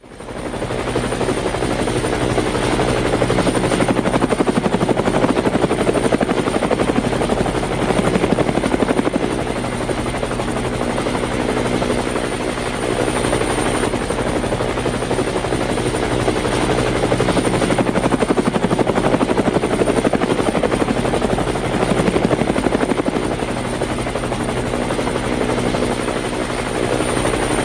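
Small quadcopter drone's propellers and motors whirring steadily, a continuous hum with a constant high whine and a fast, even pulsing.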